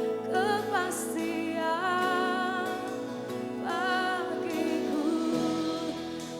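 Live worship music: a singer holds three long, wavering notes over steady sustained chords from the band.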